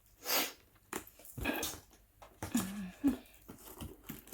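Parcel packaging being handled and pulled at, making several short crinkling, crushing noises.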